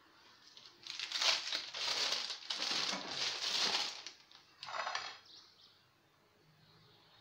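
Thin plastic sheet crinkling as it is gathered up by hand: a run of rustles lasting about three seconds, then one more short rustle about five seconds in.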